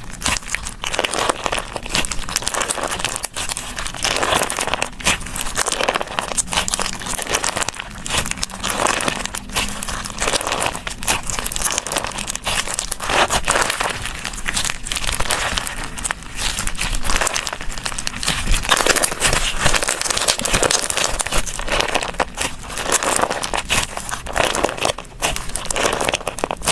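Slime being squeezed and stretched by hand, making a continuous dense crackling full of small pops and clicks.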